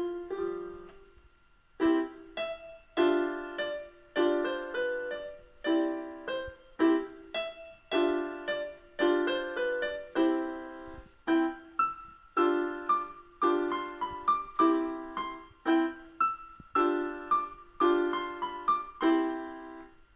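Electronic keyboard on its piano voice, played by a child with both hands: a simple piece in even notes and chords about once a second, each struck note fading, with a short pause near the start.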